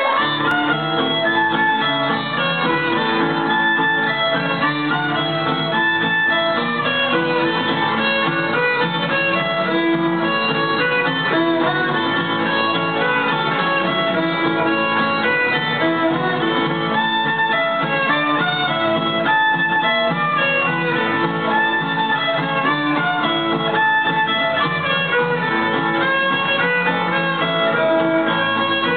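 A Texas old-time fiddle tune played on the fiddle, with two acoustic guitars playing rhythm behind it, without a break.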